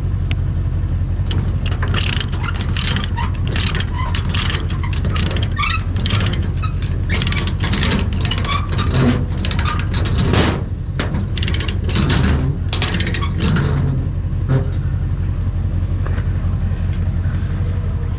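An engine running steadily, overlaid by rapid, irregular metallic clanking and rattling that thins out about fourteen seconds in.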